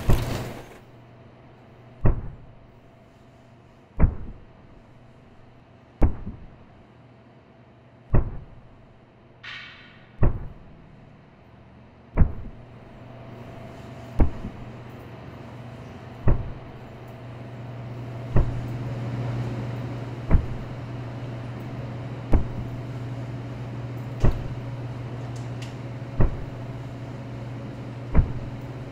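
Suspense sound design: a sharp hit with a short decaying boom about every two seconds, over a low steady hum that swells past the middle, with a brief rising swish about ten seconds in.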